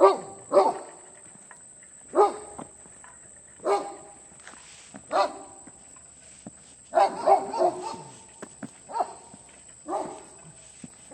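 Dogs barking: single barks about every second and a half, with a quicker run of several barks around seven seconds in.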